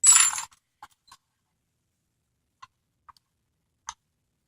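A short metallic clatter of small metal parts being handled, then a handful of faint, widely spaced clicks as tools work on the lock.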